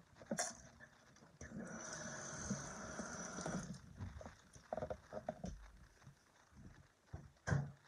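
Handling noise close to the microphone: a click just after the start, a steady hiss for about two seconds, then scattered knocks and rustles, with a sharp knock near the end.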